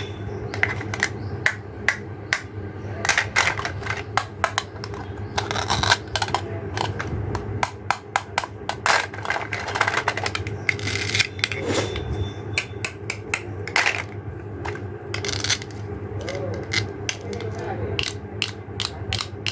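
Small plastic toy pieces being handled: irregular clicks, taps and scrapes over a steady low hum.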